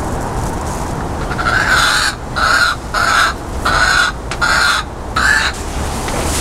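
A bird giving six harsh calls in an even series, about two every second and a half.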